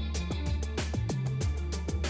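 Instrumental music with a steady beat and a deep held bass.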